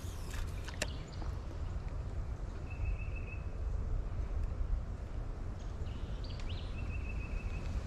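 Outdoor creek-bank background with a low, steady rumble of wind on the microphone. A bird gives a short, even, high trill twice, about three seconds in and again near the end.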